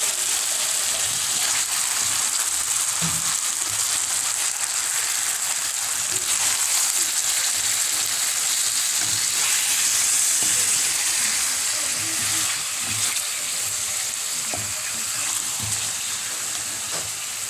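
Chicken pieces sizzling steadily in hot oil in a wok as a wooden spatula stirs and turns them, with scattered soft knocks of the spatula against the pan.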